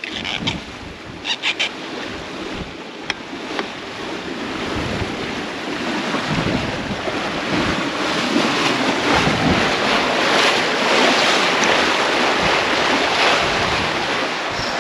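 Wind buffeting the microphone over water rushing and splashing in the wake of a sailing catamaran under way. It gets louder from about halfway through.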